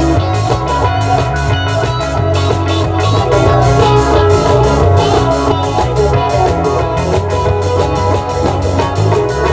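A band playing rock music: guitar over a drum kit, with a steady beat.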